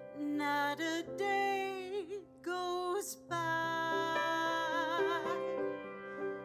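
A woman singing slow, held phrases with vibrato over sustained piano chords.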